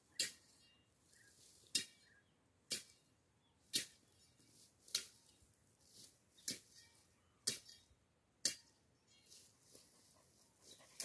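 Machete strokes chopping through dry brush and stems, a sharp whack about once a second.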